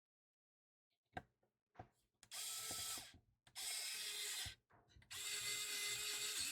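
Screwdriver driving a screw into the speaker's plastic housing in three short runs, each starting and stopping abruptly, with a few light clicks before them. The screw catches its thread.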